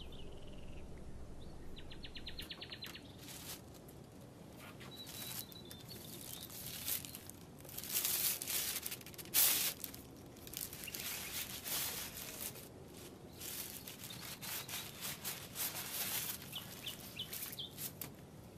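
Faint outdoor ambience of bird chirps, with a quick trill about two seconds in and short high chirps near the end, over scattered rustles and crackles that grow busier in the middle.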